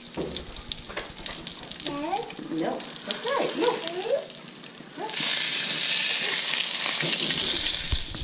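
Cornmeal-breaded speckled trout frying in oil in a nonstick pan: a light crackling sizzle that jumps to a loud, steady hiss about five seconds in, as the fillet is moved with a spatula, lasting nearly three seconds.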